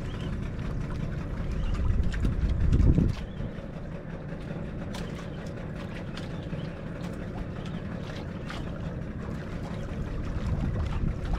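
Steady low rumble of a fishing boat at sea, with wind on the microphone. It swells for a moment about two to three seconds in and again near the end, and faint clicks are scattered through it.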